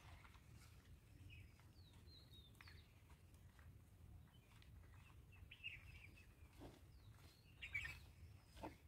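Near silence: faint outdoor ambience with a few short, faint bird chirps scattered through it, and a couple of soft clicks near the end.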